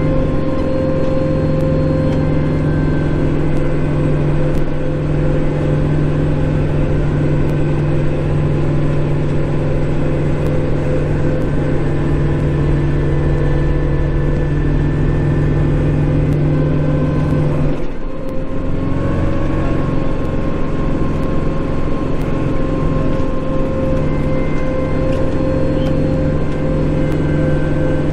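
Kubota Grand L5740 tractor's diesel engine running steadily at working revs, heard from inside the cab. About eighteen seconds in, the engine note dips briefly and changes pitch slightly, then runs on steadily.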